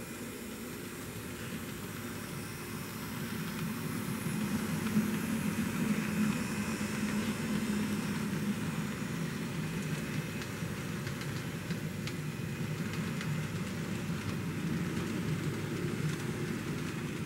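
N-scale model train running on Kato track, with the low hum of the running gear and faint clicking of wheels over the rail joints. It grows louder about three seconds in as the autorack cars roll past close by, then holds steady.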